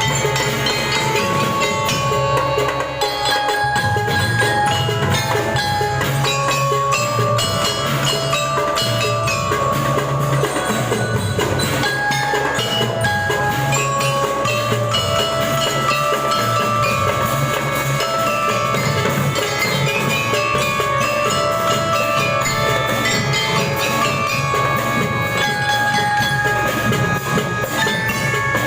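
Student drum band playing a tune: bell lyres (glockenspiel) carry the melody in quick ringing notes over steady drumming.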